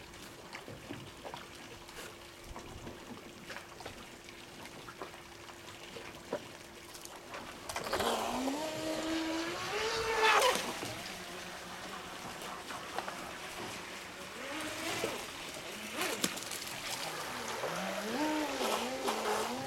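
Brushless electric motor (Feigao 380S, 4500 kV, on 3S 11.1 V) of an Aquacraft Mini Rio RC boat whining as it is throttled up, its pitch rising and falling with the throttle and loudest about ten seconds in, then wavering again near the end. It is held to partial throttle because the hull cannot take the motor's full speed on 3S. A faint steady tone is heard before the motor first speeds up.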